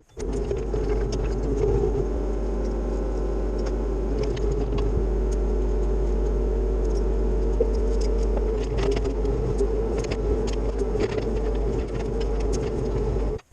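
Cat 304 CR mini excavator's diesel engine running steadily, with scattered metallic clinks and knocks over the top.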